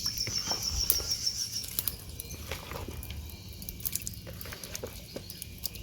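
An insect's fast pulsing high trill for the first second and a half, with scattered light knocks and clicks of pots and utensils being handled over a low steady outdoor background.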